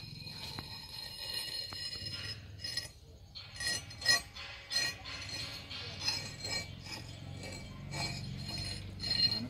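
Rusty iron axe head clinking against a steel plate as it is handled and set down: a series of sharp metal-on-metal knocks with brief ringing, the loudest about four seconds in.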